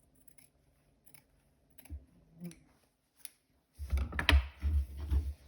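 Scissors snipping as the edges of an interfaced fabric strip are trimmed: a few separate clicks, then a busier run of snips and knocks on the work surface for the last second and a half.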